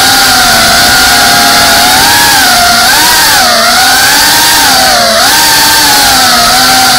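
FPV quadcopter's brushless motors and propellers whining loudly, the pitch wavering up and down with the throttle and dipping about three and a half and five seconds in, over a steady hiss of prop wash.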